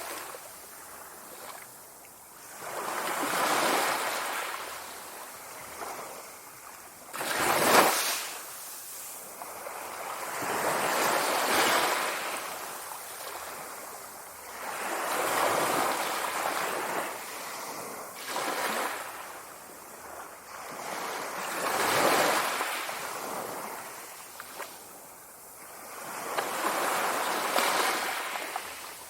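Sea waves breaking on the shore, a wash of surf that swells and recedes about every three to four seconds, with one sharper crash about eight seconds in.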